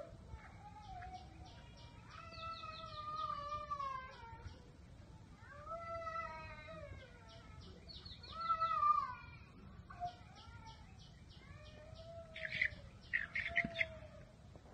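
A series of long, drawn-out animal cries, each arching and then falling in pitch. Between them come trains of rapid high ticking chirps, and near the end a few sharp high calls.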